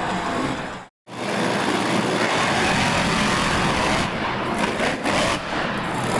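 Monster truck engines running hard at high revs, cut off sharply for an instant about a second in, then two monster trucks racing with their engines at full throttle.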